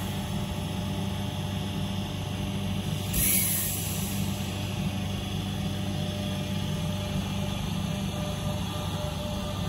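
Electric commuter train pulling slowly into a station: a steady low hum of its motors and wheels on the rails, with a short hiss about three seconds in.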